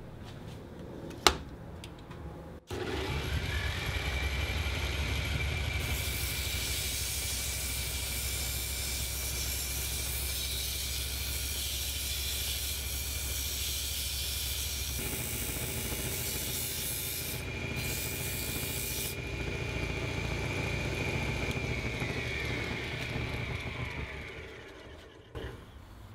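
Two sharp clicks, then the Bosch Combi lathe, driven by an electric drill motor through a V-belt, starts about three seconds in and runs with a steady hum and whine while sandpaper hisses against the spinning wooden dowel. Near the end the motor is switched off and its whine falls as it runs down.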